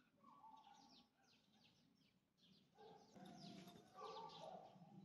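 Small dog whimpering and whining faintly in high, drawn-out tones, once briefly in the first second and then longer from about three seconds in. It is a fearful whimper, which the trainer reads as the small dog being scared of being crushed or hurt by the much bigger, over-excited dog.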